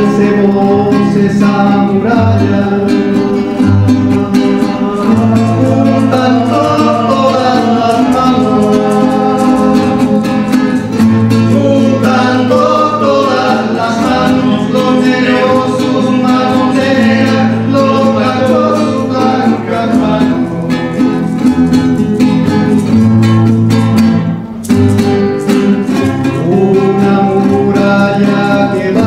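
Live acoustic folk music: a classical guitar and a small guitar-like string instrument strum and pick an accompaniment under a lead melody line, with a brief drop in level about three-quarters of the way through.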